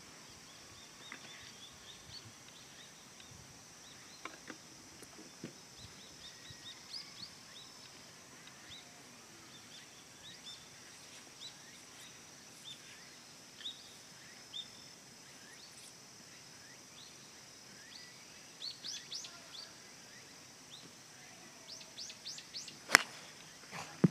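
A golf club strikes the ball on a tee shot with one sharp crack about a second before the end. Under it run a steady high insect drone and scattered short bird chirps.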